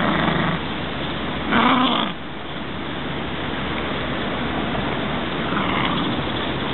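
Welsh Terrier growling in short bursts as it tugs and chews at a branch held in its teeth: two strong growls in the first two seconds and a fainter one near the end, over a steady rushing noise.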